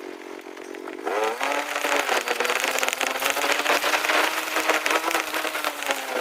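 An engine running, jumping louder and slightly higher in pitch about a second in, with a crackly rasp over a steady hum.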